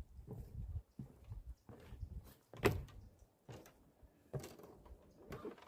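Footsteps of a hiker walking on a forest trail, about one step a second.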